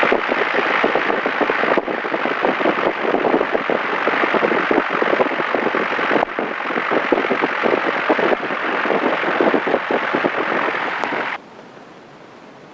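Cabin noise of a small single-engine training airplane taxiing after landing: the engine and propeller heard as a loud, steady, even noise that cuts off suddenly near the end.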